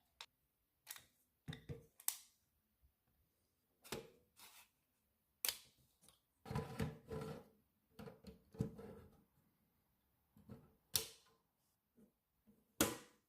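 Hands handling NAS hardware: a string of separate plastic-and-metal clicks and snaps, irregularly spaced, with two longer rattling stretches about halfway through.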